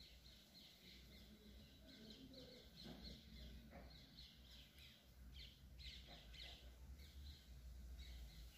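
Near silence: a steady low hum with faint, short, high chirps scattered throughout.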